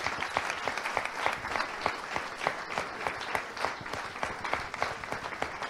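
Audience applauding: the steady clapping of many hands.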